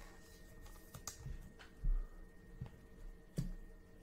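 Baseball cards handled at a table: light clicks and taps of cards being sorted and set down, with a dull thump just under two seconds in and a sharper knock about three and a half seconds in.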